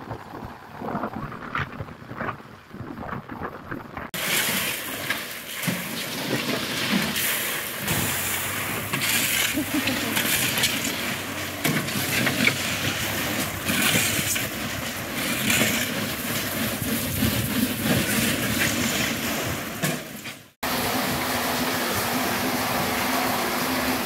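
Truck-mounted well-drilling rig turning its auger into sandy ground. From about four seconds in, gravel is raked and scraped in a steel trailer bed. Near the end, water streams and splashes into a storage tank over a steady low hum.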